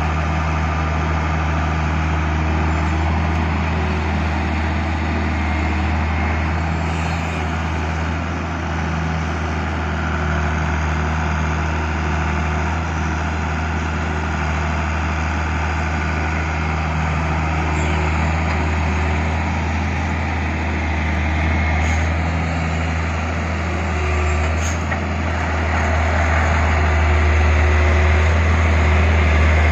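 Heavy diesel engine of a loaded UD Nissan dump truck running steadily as the truck pulls forward over loose dirt, getting louder near the end.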